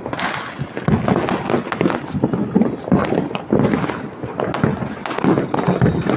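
Many firecrackers and fireworks bursting in a dense, uneven run of overlapping bangs and crackles, with voices mixed in.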